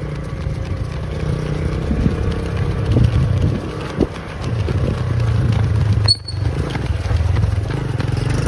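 Low, gusty rumble of wind buffeting the microphone of a camera carried at a run, with a brief dropout a little past the middle.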